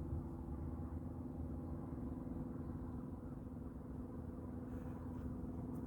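Steady low rumble with a constant hum and no break or change.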